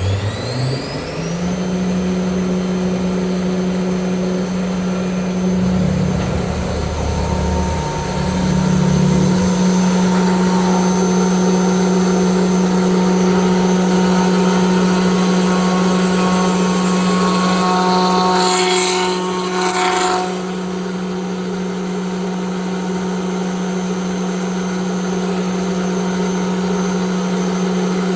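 CNC router spindle spinning up with a rising whine, then running at a steady pitch. Its sound changes briefly between about six and nine seconds in, and a short burst of hissing noise comes about nineteen seconds in.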